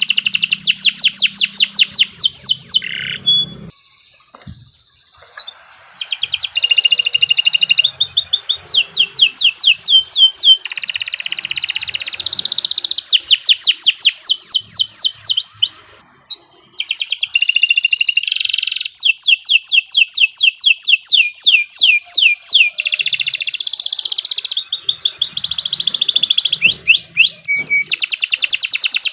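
Domestic canary singing long, fast phrases of rapid trills and rolling repeated notes, high-pitched, with a short break about four seconds in and another about sixteen seconds in.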